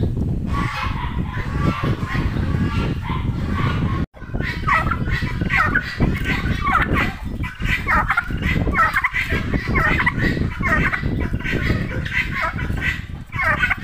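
Domestic tom turkey gobbling in display, its rapid warbling calls repeating among other farmyard fowl calls, over a steady low rumble. The sound cuts out for a moment about four seconds in.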